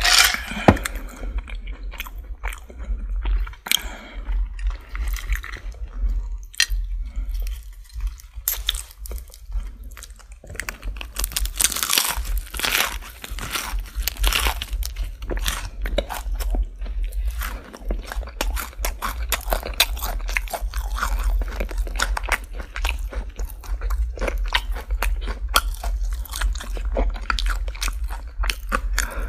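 Close-miked crunching and chewing of crispy Popeyes fried chicken, with crackling bites throughout. One loud crunch comes right at the start, and a denser run of crackling comes about eleven seconds in, all over a steady low hum.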